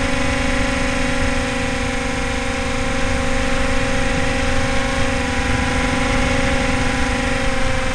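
Brushless electric motor and propeller of an RC Flying Fox model plane running at steady power, heard from a camera mounted on the plane: a loud, nearly even buzzing whine over rushing wind and airframe noise.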